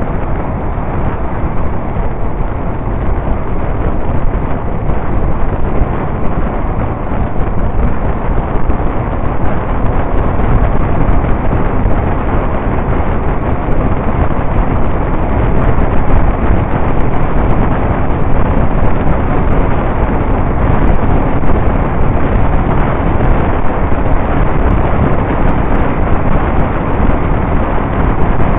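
Loud, steady wind rush on the microphone of a camera mounted on a motorcycle at road speed, with the motorcycle's engine running underneath.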